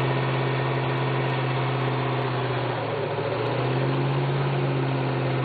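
Early-1970s Ford Mustang's engine held at high, steady revs while it spins its rear tyres in a burnout, with a brief wobble in pitch about three seconds in.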